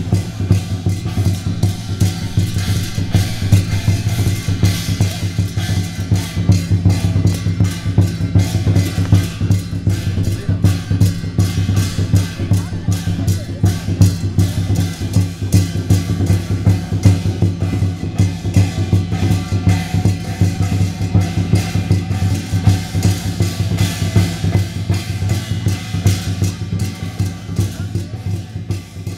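Loud, fast and steady drumming, the percussion that accompanies a Chinese lion dance.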